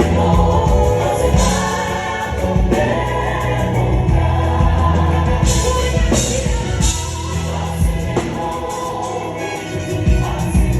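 Gospel music with a group of voices singing over a band, with long held bass notes underneath.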